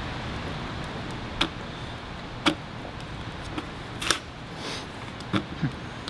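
Green-handled left-cut aviation tin snips cutting a sheet-metal patch panel: a few sharp snips of the jaws, spaced about a second apart, with fainter clicks between.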